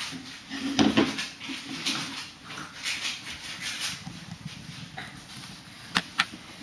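Messy, wet chewing and smacking as a whole tomato is eaten greedily, with two sharp clicks about six seconds in.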